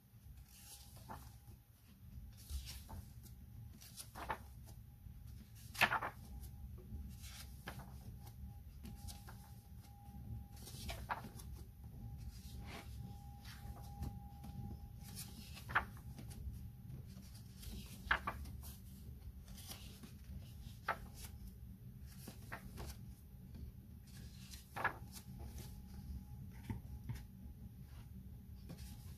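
Paper pages of a colouring book being turned and pressed flat by hand: soft rustles and swishes of paper, with a sharper page flap or slap every few seconds.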